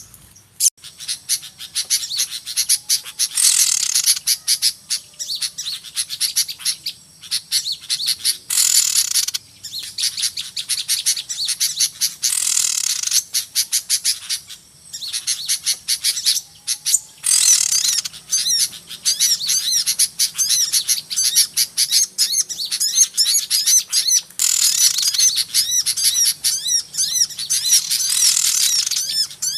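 Many small birds chirping and twittering in a dense, noisy chorus of rapid high-pitched calls. Louder bursts of calls come every few seconds. This is a lure recording used to attract small birds for trapping.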